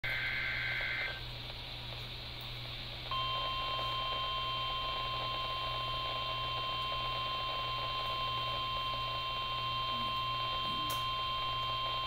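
Emergency Alert System test: the end of the warbling SAME header data burst in the first second, a short pause, then a single steady attention tone that starts about three seconds in and holds to the end, over a low steady hum.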